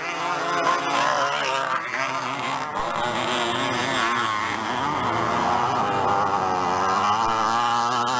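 Several 50cc two-stroke moped engines revving high as motocross mopeds race past down a dirt slope. Their overlapping pitches waver up and down as the riders work the throttles.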